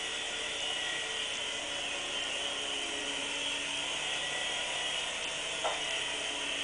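Electric motor and rotors of a micro RC toy helicopter whirring steadily in flight, the pitch wavering slightly, with a light tap about five and a half seconds in.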